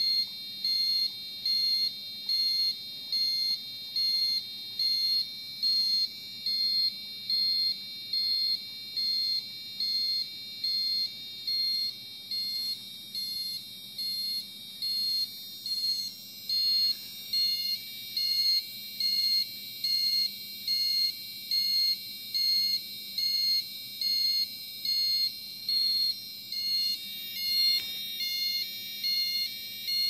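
Homemade two-555-timer police siren circuit sounding through a small piezo buzzer: a shrill, high-pitched electronic tone that warbles up and down in an even rhythm, a little faster than once a second.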